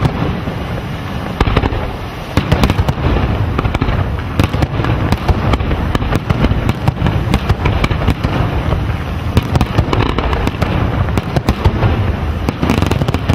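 Aerial firework shells bursting in a rapid, continuous barrage, with many loud bangs overlapping one another without a break.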